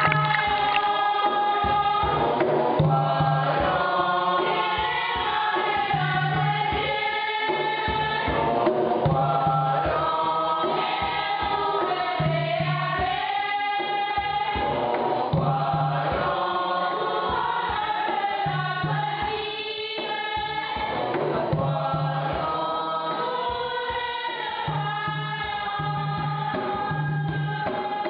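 A choir of voices singing over a steady drum beat of about one stroke a second.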